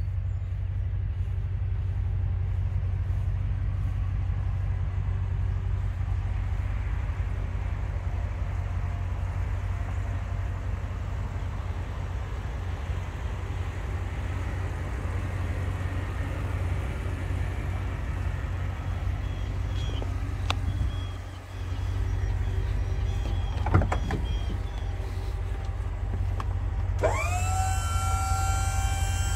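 Ram 5500's 6.4-liter Hemi V8 idling with a steady low rumble. Near the end a whine starts, rises in pitch and then holds steady.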